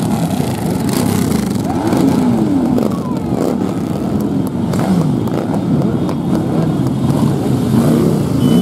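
A stream of motorcycles, cruisers and sport bikes, riding past one after another, their engines running and revving. The overlapping engine notes rise and fall in pitch as each bike goes by.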